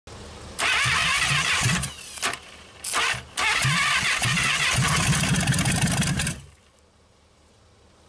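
1956 Packard 374 V8 being cranked over hard by its starter on 24 volts, in an attempt to get it to fire for the first time in years. The starter runs in rapid, pulsing bursts, stops briefly twice, and cuts off sharply about six and a half seconds in.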